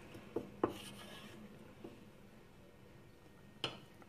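Wooden spoon stirring thick bean curry in a stainless steel pot, a faint scraping with two light knocks less than a second in and another knock near the end.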